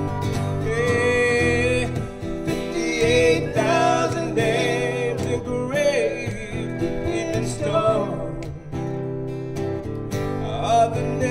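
Instrumental break of a live country song: a pedal steel guitar plays a sliding, wavering melody over a strummed acoustic guitar.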